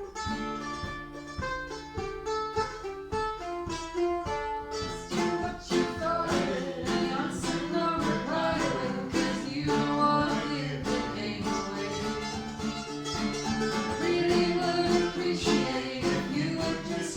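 Mandolin and other plucked strings playing a song: quick picked single notes at first, then from about five seconds in a fuller strummed accompaniment with singing over it.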